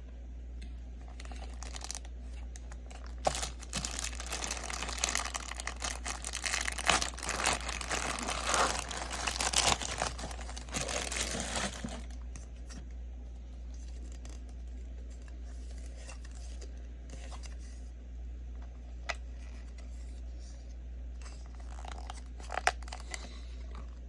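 Packaging being crinkled and torn open for several seconds, then quieter handling with a few light clicks, over a steady low hum.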